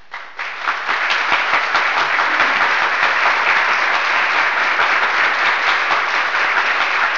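Applause from many hands, swelling over the first second and then holding steady and loud.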